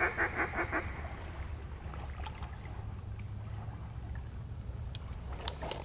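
A rapid run of duck quacks, about six a second, that fades out within the first second. Then a low steady rumble, with a few sharp clicks near the end.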